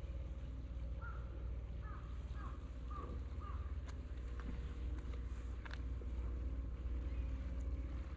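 Wind rumbling steadily on the microphone. About a second in, a crow caws five times in quick succession.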